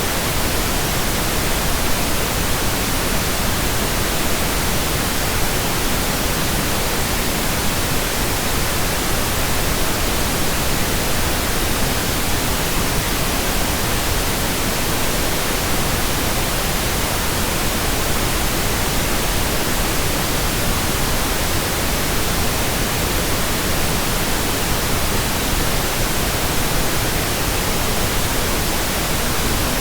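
Continuous pink noise: a steady, even hiss across the whole range of pitches that does not change.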